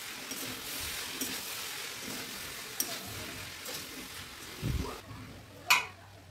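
Fried rice sizzling in a black iron kadai while a steel spatula stirs and tosses it, scraping against the pan. The sizzle fades about five seconds in, and near the end the spatula strikes the pan once with a sharp metallic clink.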